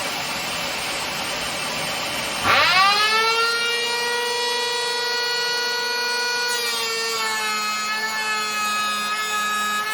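Parkside PEH 30 E5 electric planer switched on about two and a half seconds in: the motor spins up in a quick rising whine and settles into a steady high whine. A few seconds later the whine drops slightly in pitch, as when the cutter comes under load in the wood.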